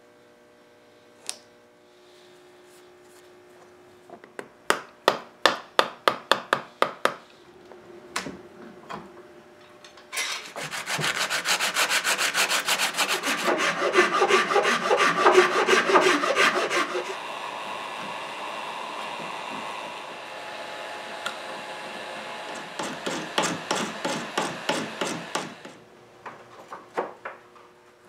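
A hand file rasping back and forth across wood in quick, even strokes: a short run of strokes, then a long loud stretch of rapid filing that settles into a steadier scraping, and another run of strokes near the end.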